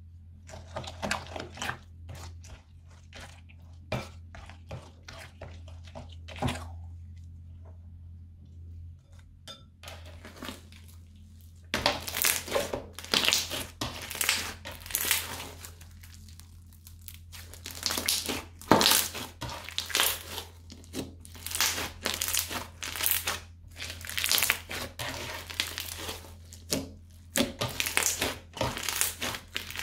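Slime stirred with a plastic spatula in a bowl, making faint sticky clicks; from about twelve seconds in, crunchy slime full of beads is kneaded and squeezed by hand, crackling and popping in dense bursts.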